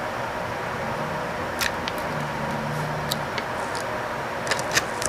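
A few light clicks and ticks of thin plastic screen-protector film and its tabs being peeled and handled by fingers, more of them toward the end, over a steady background hiss.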